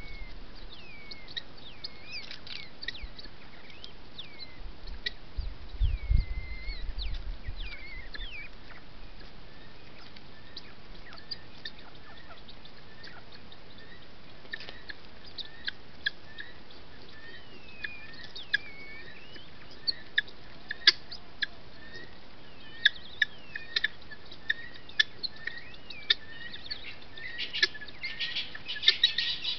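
A foraging flock of helmeted guineafowl calling softly, with repeated short chirps and sliding whistled notes. Sharp clicks join in during the second half and thicken into a dense flurry near the end. There is a brief low rumble about six seconds in.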